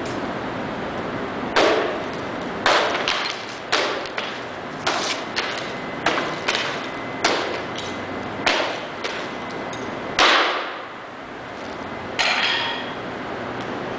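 A hammer striking a sculpture over and over: about a dozen sharp blows at uneven intervals, roughly one a second, some with a short ring after the hit.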